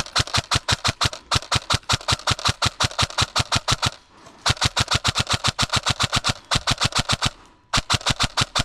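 Airsoft gun firing long, very regular strings of shots at about nine a second, with brief pauses near the start, about halfway through and near the end.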